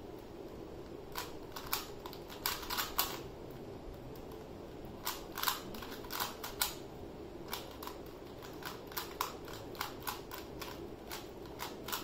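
Clicking of a 3x3 Rubik's cube as its layers are turned quickly by hand, in quick runs of turns with short pauses between them, and one longer pause about three seconds in.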